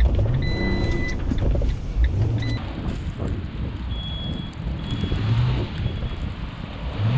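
Delivery van's engine revving up and easing off several times while the van is stuck in snow, as the driver tries to drive it out. Short electronic beeps sound near the start and a few more in the middle.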